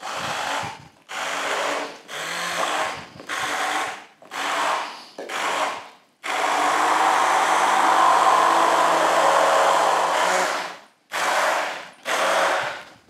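Electric stick blender pureeing butternut squash soup in a pan. It runs in short pulses of about a second each, then holds one long steady run of about four seconds, then gives two more short pulses, leaving the soup slightly chunky.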